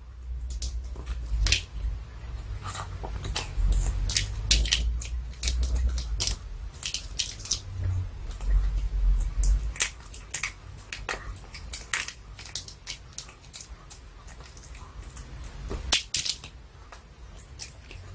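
Pomeranian gnawing a duck cartilage chew treat held in its paws: many irregular sharp crunches and clicks of teeth on the hard treat, picked up close by an earphone microphone, with a low rumble under the first half.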